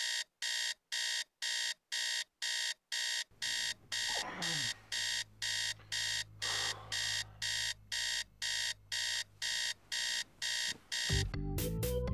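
Digital alarm clock beeping rapidly in even high beeps, nearly three a second, until it stops about eleven seconds in and music begins.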